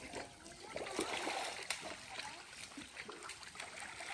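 Faint splashing and trickling of muddy pond water stirred up by people wading, with a couple of light knocks.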